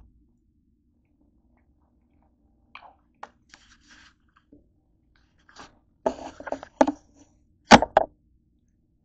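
Scattered light crunching and crinkling from eating and handling a plastic soda bottle: a few soft clicks, then louder clusters of crackling about six seconds in and again near the end.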